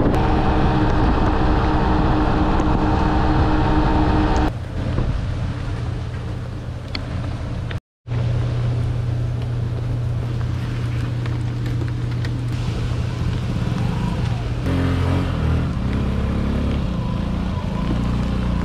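Small 49cc scooter engine running steadily at road speed, with wind and road noise. After a break it idles with a steady low note, which then rises and falls in steps near the end as the throttle is worked.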